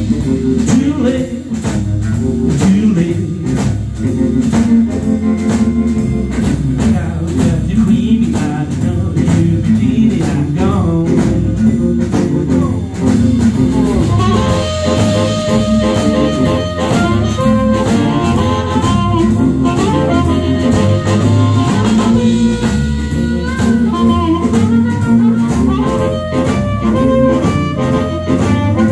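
Live blues band playing: drum kit keeping a steady beat under electric bass and electric guitar, with a held lead melody line coming in about halfway through.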